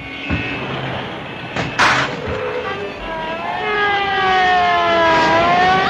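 Cartoon street-traffic sound effects: car noise with a few sharp knocks, then from about halfway through a long pitched wail that sinks and then rises again.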